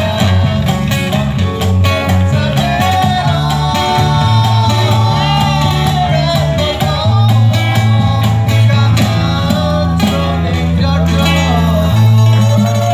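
Live acoustic band playing: a man sings a melody into a hand microphone over a strummed acoustic guitar, an electric guitar and a cajon beating out the rhythm.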